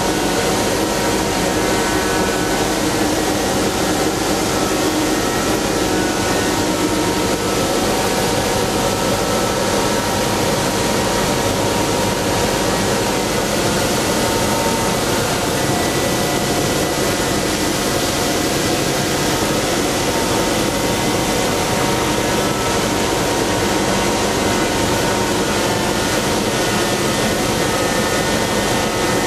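Ice edger running steadily, its blade cutting at deep depth to trim ice that has grown up along the rink's edge. The machine noise stays even throughout, with faint tones that drift slightly.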